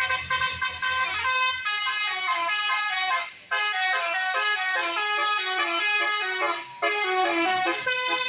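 Bus 'telolet' horn, a set of multi-trumpet air horns, playing a quick tune of stepped notes with several tones sounding together, broken by two short pauses.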